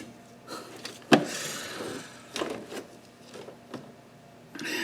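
Loose parts being handled: a sharp knock about a second in, a brief rustle, then a few lighter knocks.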